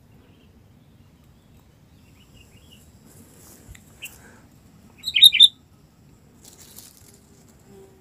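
Sooty-headed bulbuls calling: a few faint chirps, then a quick loud burst of three or four sharp chirps about five seconds in. A brief flutter of wings follows, likely from the captured bird held by its wings.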